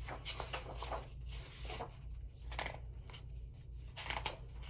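Pages of a large hardcover picture book being opened and turned: a string of papery rustles and swishes, strongest in the first second and again near the end.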